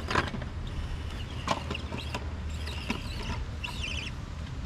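Birds calling in short chirping phrases, over a steady low wind rumble on the microphone, with a few sharp clicks.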